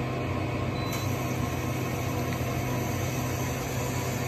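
2019 Okuma Genos L3000-e CNC lathe running with its spindle turning: a steady machine hum with a spraying hiss of flood coolant. The hiss comes up about a second in as the coolant starts.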